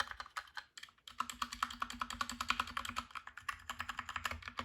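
Fast typing on a Dierya DK63 mechanical keyboard with brown switches: a dense, quick clatter of keystrokes, with a brief pause about a second in.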